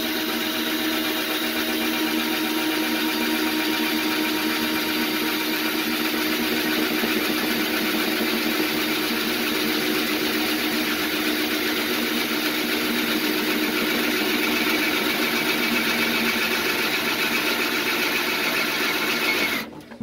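A cordless drill runs steadily under load, boring through an aluminum firewall with an extended drill bit. The motor stops suddenly just before the end.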